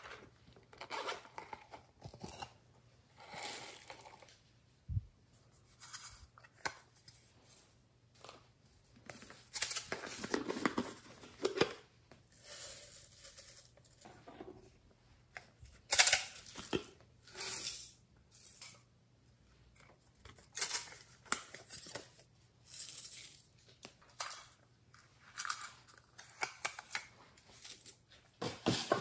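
Sequins, glitter and confetti sprinkles shaken out of small plastic tubes onto slime in a glass dish: a series of short, irregular rattling bursts with brief pauses between.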